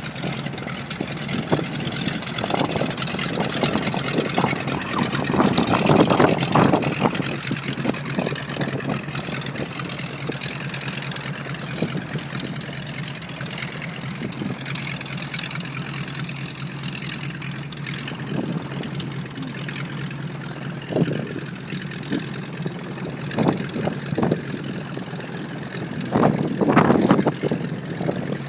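North American T-6 Texan's nine-cylinder Pratt & Whitney R-1340 radial engine running at taxi power, its propeller turning, a steady low drone that swells louder about five seconds in and again near the end.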